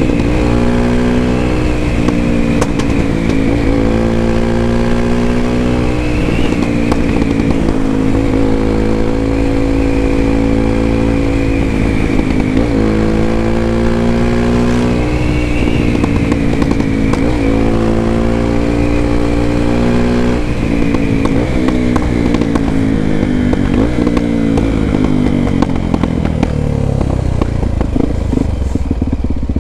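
Honda XR250 Tornado's single-cylinder four-stroke engine through an aftermarket Belparts Classic exhaust, heard from the rider's seat while riding at speed. The engine note rises and drops several times with throttle and gear changes, then falls away as the bike slows near the end.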